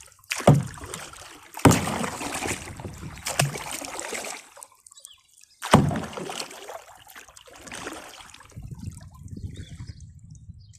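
Water splashing and sloshing around a kayak: four sudden splashes, each fading out over a second or so, with a softer low slosh near the end.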